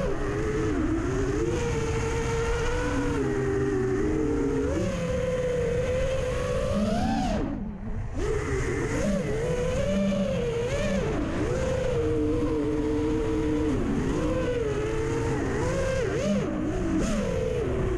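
Electric motors and propellers of a 5-inch FPV quadcopter with T-Motor F80 motors on a 4S battery whining in flight, the pitch wavering up and down constantly with throttle changes. About seven and a half seconds in the throttle is cut for a moment and the motors spool back up. Wind rumbles underneath.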